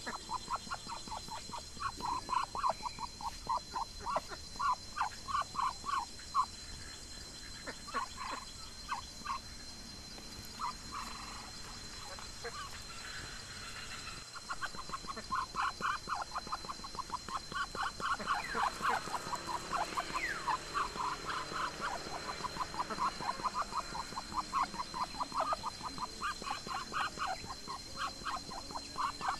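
Runs of short, quickly repeated animal calls, several a second, easing off for a few seconds in the middle and then coming thick again, over a steady thin high whine.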